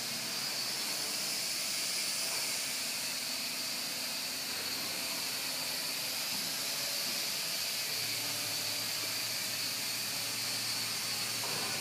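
Small quadcopter's motors and propellers whirring steadily in flight, a high, even, hiss-like whine.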